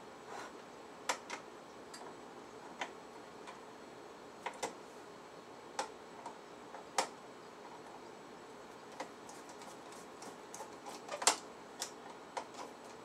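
Small hand screwdriver driving little screws into the metal parts of a Panavise 350 vise, making irregular light clicks and ticks, with a small cluster of them and the sharpest click near the end.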